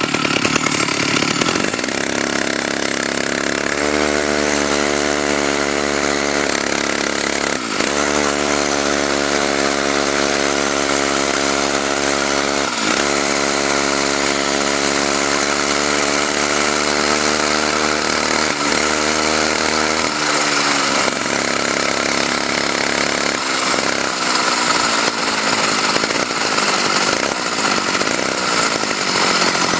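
Two-stroke chainsaw engine driving a homemade motorized bicycle, running steadily at high revs with brief dips around 8 and 13 seconds in. From about two-thirds of the way through, the even tone gives way to a rougher, noisier running sound.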